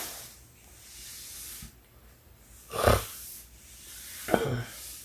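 A sleeping woman breathing heavily and snoring: soft breathy hiss, then two short, loud snores about a second and a half apart, one near the middle and one near the end.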